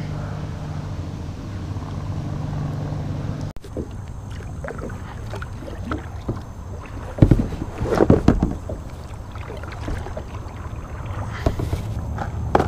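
Kayak being paddled: the paddle blades dip and splash, loudest about seven to eight seconds in, with a few light knocks in between. A steady low hum fills the first few seconds.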